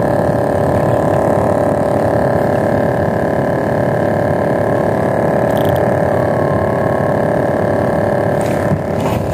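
A boat engine running steadily at one pitch, with wind buffeting the microphone.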